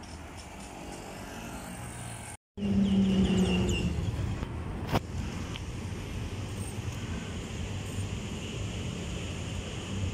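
Road traffic: cars driving by on a multi-lane road. The sound cuts out for a moment about two and a half seconds in, then a nearby vehicle's engine hum is loudest for about a second before steady traffic noise carries on, with a single click a couple of seconds later.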